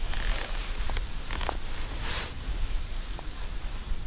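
Wind noise on the microphone, a steady low rumble, with light rustling of a winter jacket as the hands work a jigging rod. A brief hiss of rustling about two seconds in, and a few faint clicks.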